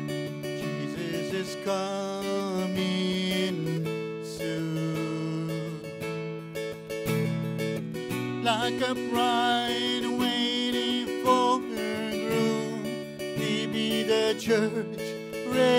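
Acoustic guitar strummed in steady chords, with a man's voice singing over it in phrases.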